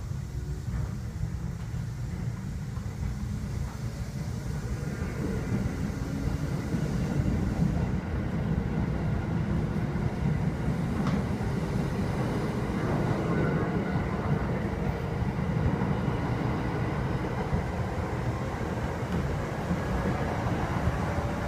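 Kintetsu 2000 series electric train heard from inside the car while it gathers speed: a whine from the motors and gears climbs slowly in pitch over the rumble of the wheels, and it grows louder as the train speeds up.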